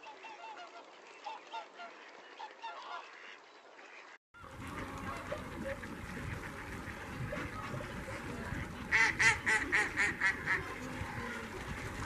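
A flock of waterfowl calling on open water: faint, scattered honks at first, then after an abrupt change a louder, busier chorus of calls. About two-thirds of the way through comes a quick run of about seven loud honking calls.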